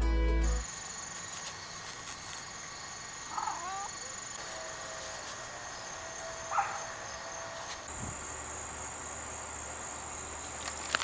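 Background music cuts off just after the start, leaving an outdoor insect chorus: a steady high-pitched trill of crickets or similar insects. Two brief chirps stand out, about three seconds and six and a half seconds in.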